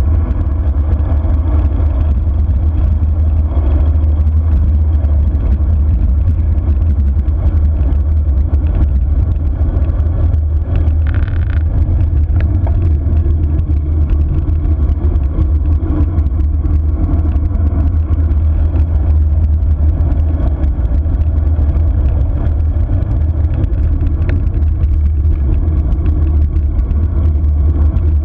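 Steady, loud low rumble of wind buffeting an action camera's microphone at downhill speed on a bicycle descent, with a brief higher-pitched sound about eleven seconds in.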